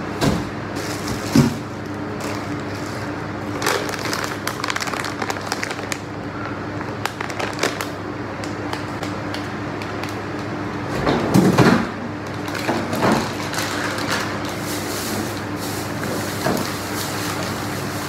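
Groceries being handled: plastic bags rustling and items knocking as they are moved, in several short bouts, the loudest about two-thirds of the way through, over a steady electric hum.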